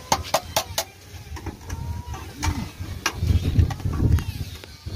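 Sharp knocks of hand tools on wood: four quick taps in the first second, then a few scattered ones. A low rumble comes in about three seconds in.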